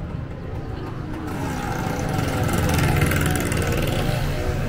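A motor vehicle passing close by on a busy street. Its engine and road noise swell to a peak about three seconds in, then ease slightly, over a background of voices.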